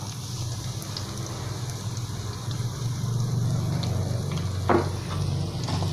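Ground spice paste sizzling as it fries in oil in a pan, over a steady low hum, with one brief sharp sound near the end.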